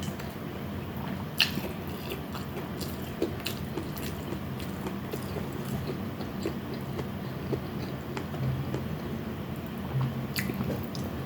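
Close-up chewing and biting of food, with scattered small clicks and two sharper ones, about a second and a half in and near the end, over a steady low hum.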